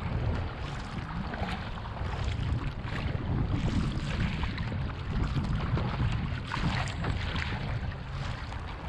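Paddle strokes splashing and water rushing past the hull of a Fenn Bluefin-S surfski in choppy sea, with wind buffeting the bow-mounted microphone as a low rumble.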